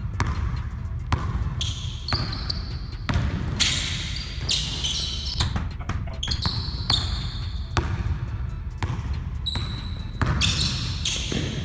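A basketball dribbled on a hardwood gym floor, a long irregular run of sharp bounces, with short high squeaks of sneakers on the floor as the players cut and drive.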